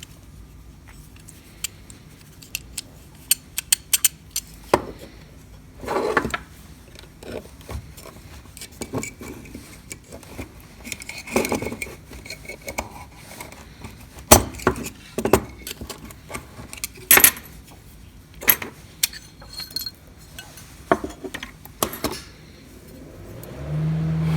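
Small metal parts of an HES 5000 electric strike clicking and clinking irregularly as it is taken apart by hand, with a few brief scrapes of metal on metal.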